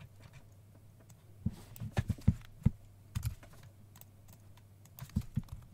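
Computer keyboard keys being typed in short bursts of a few clicks each, over a faint steady hum.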